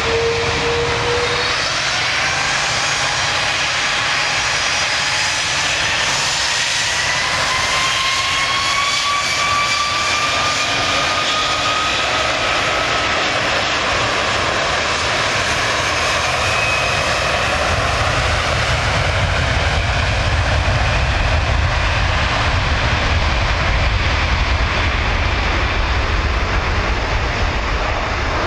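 Jet2 Airbus A330's twin jet engines spooling up to take-off power: several whines climb steadily in pitch over the first dozen seconds over a broad jet noise. From about two-thirds of the way through, a heavy low rumble builds as the aircraft starts its take-off roll.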